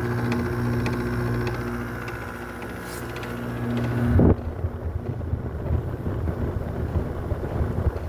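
Window air conditioner running with a steady electrical hum, which cuts off about four seconds in with a brief loud surge. An uneven low rumble follows, and it drops away near the end.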